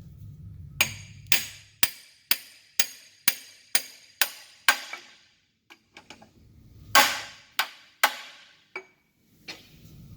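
Hammer blows on metal driving a transmission countershaft bearing onto its shaft: nine even, ringing taps about two a second, then a pause and a few more irregular blows, the heaviest about seven seconds in.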